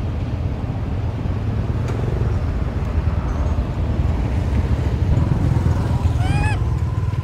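A steady low rumble throughout, with one short, arching call from a macaque about six seconds in, its pitch rising then falling.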